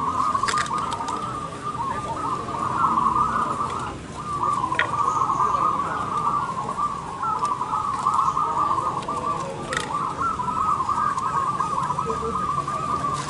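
A chorus of many caged zebra doves (perkutut) cooing at once, their high, trilled coos overlapping into an unbroken stream that thins briefly about four seconds in.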